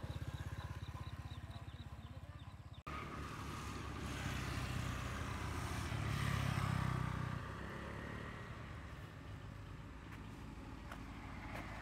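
A passing step-through motorbike, its engine's rapid putter loudest at first and then fading. After a cut about three seconds in, a low rumble with hiss swells around the middle and eases off again.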